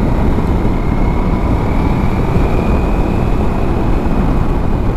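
Ducati Multistrada V4S V4 engine running at a steady cruise under heavy wind rush on the microphone, with a faint high whine that rises slightly about two seconds in.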